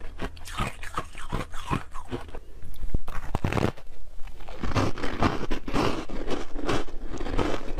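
Close-miked chewing and crunching of ice in the mouth, dense with sharp crackles. About two and a half seconds in it changes to biting into and chewing a block of frozen milk, with louder, thicker crunching.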